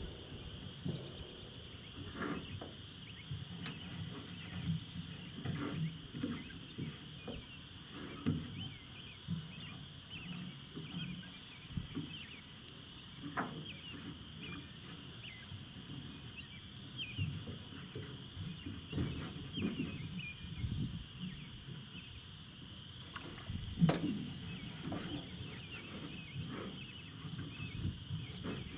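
Animal calls: a steady high chorus of many short chirps, over irregular low rumbling with a few knocks, one louder knock near the end.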